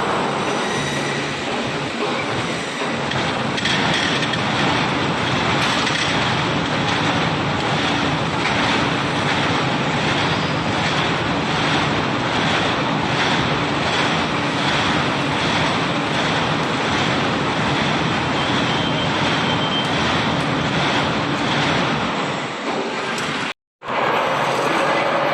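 Loud, steady industrial machinery noise with a faint regular clattering and a low hum. It cuts out for a moment near the end, then carries on.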